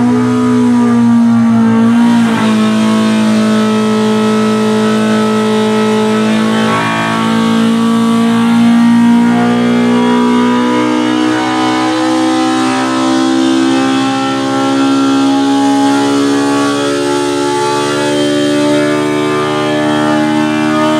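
Big-bore Polaris RZR Pro R four-cylinder engine in a wide-open-throttle dyno pull, running on a 3D-printed prototype 68 mm throttle body with a freshly loaded tune. It runs loud and steady under load, its pitch climbing slowly in small steps as engine speed sweeps up toward about 9,000 rpm.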